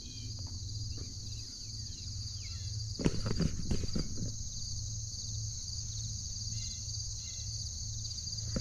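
Steady high-pitched chorus of insects. A few short knocks and rustles come about three seconds in.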